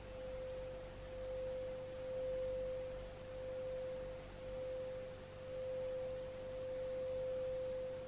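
Singing bowl being rimmed, sounding one steady pure tone near 520 Hz that swells and fades about once a second.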